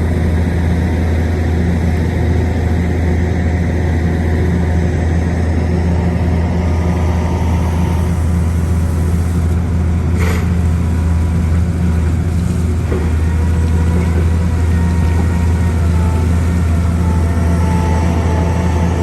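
A heavy engine running with a steady low drone, with a brief sharp sound about ten seconds in.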